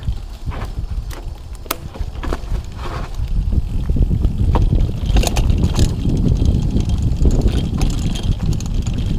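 Mountain bike rattling and clattering over a rough dirt and rock trail on a fast descent, with low wind rumble on the microphone; it grows louder and busier about three to four seconds in.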